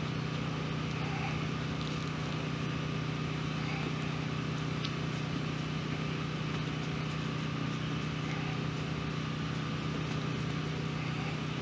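A steady low mechanical hum, with the faint even rubbing of wet 2000-grit sandpaper on a plastic headlight lens.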